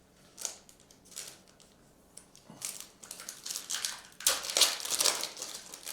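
Foil trading-card pack wrapper crinkling as it is handled, in a series of sharp rustles that are loudest near the end.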